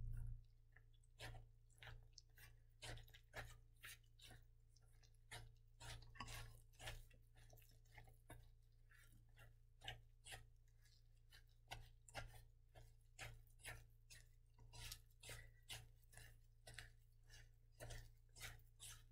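Silicone spatula stirring a stiff, gritty play-dough mixture of flour, salt and coffee grounds in a metal mixing bowl: faint, irregular scrapes and knocks, about two a second.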